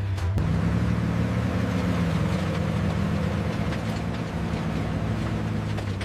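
Continental V12 engine of a restored M48 Patton tank running steadily under way, a low rumble.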